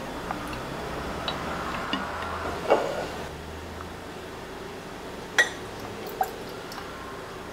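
Vodka poured from a bottle into a shot glass, filling it for about three seconds, then sharp glass clinks twice as the shot is tipped over ice into a tall glass.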